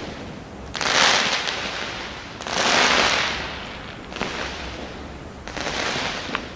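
Fireworks going off: four bursts about every second and a half, each a sudden rush of noise that fades over a second or so. The loudest come about a second and three seconds in.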